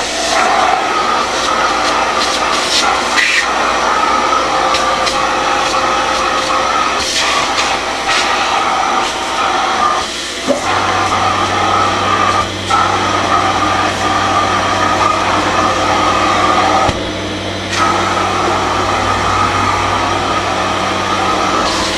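Kärcher MV 6 P Premium wet-and-dry vacuum cleaner running with a steady motor whine that dips briefly three times. A low steady hum joins about halfway through.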